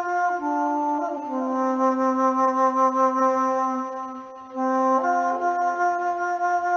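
Native American style flute in low B playing slow, held notes that step down to its lowest note and sustain there for a few seconds, with a wavering, breathy tone. After a brief pause for breath about two-thirds through, it moves back up to higher notes.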